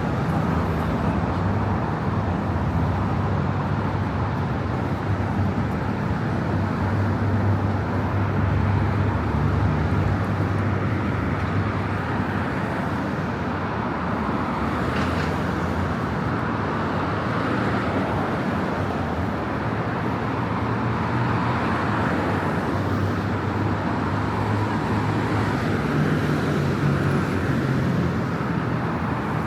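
Steady city road traffic: cars passing on a busy street, a continuous hum of engines and tyres.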